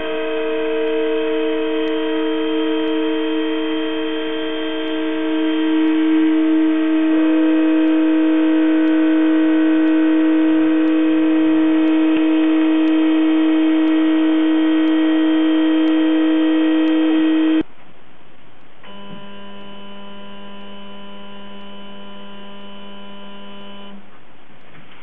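Roland JWX-30 wax milling machine running while its cutter mills holes in a jewelry wax block, giving a steady tone made of several held pitches that shift about a third of the way through. About two-thirds of the way in the sound cuts off abruptly and drops to a quieter, different steady set of tones.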